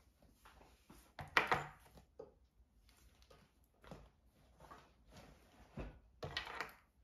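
A fabric tote bag being handled and packed: rustling with a few soft knocks as things are set down on a wooden table, the loudest a little over a second in.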